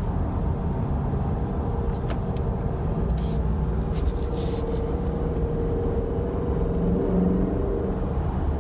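A Dodge Durango R/T's 5.7-litre HEMI V8 running under way, heard from inside the cabin with road noise, as it is shifted through the gears with paddle shifters. The engine note changes pitch about seven seconds in.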